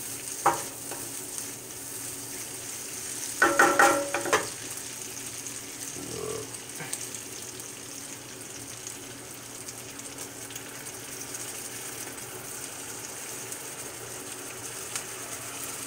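Sliced bell peppers and onions sizzling in hot oil in a cast iron skillet, stirred with a wooden spatula. A short burst of clattering comes about three and a half seconds in.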